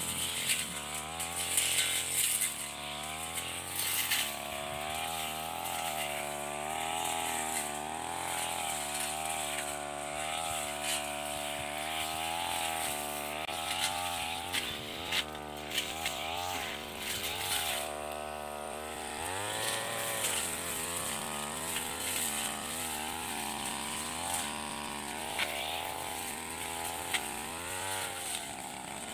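Backpack brush cutter's small petrol engine running at working speed as it clears grass and weeds. Its pitch wavers up and down, with a brief drop and pick-up about two-thirds of the way through.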